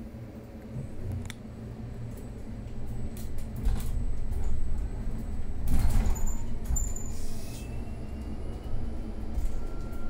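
Mercedes-Benz eCitaro electric city bus heard from inside: a steady low hum, with knocks and rattles that are loudest about six seconds in. In the second half a faint whine slowly rises in pitch, typical of the electric drive as the bus gets moving.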